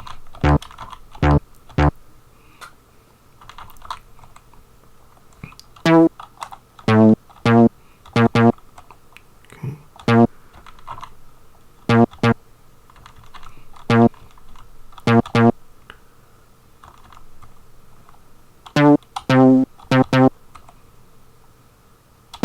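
Short bass notes from an old Amiga SoundTracker sample, played one at a time and in small clusters of two or three as a tracker bass line is tried out, with computer-keyboard typing between the notes.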